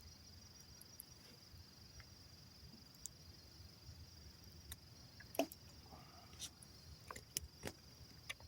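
Steady high-pitched chirring of crickets, with a few faint sharp clicks and taps in the second half.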